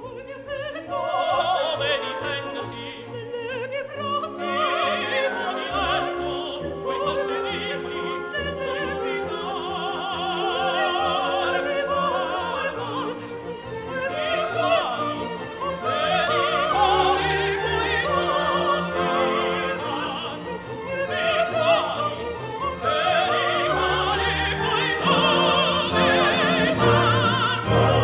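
Operatic music: an orchestra playing with a singer's voice wavering in vibrato above it.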